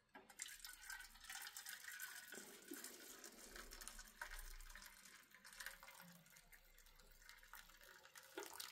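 Hot tea poured in a thin stream from a metal camping pot into a small metal pan: a faint, steady trickle.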